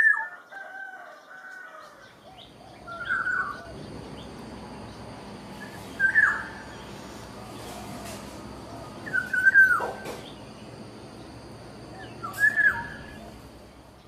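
Black-naped oriole calling: five short whistled calls about three seconds apart, one near the middle ending in a long downward slide.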